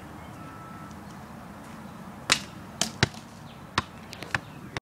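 A ball knocking and bouncing: about five sharp thuds over two seconds, coming near the end.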